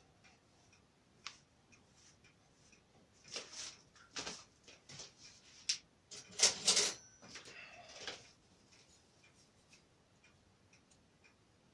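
Hands rolling and pressing soft cottage-cheese dough into a rope on a floured wooden cutting board: a handful of short, soft rubbing and patting sounds, the loudest a little past halfway.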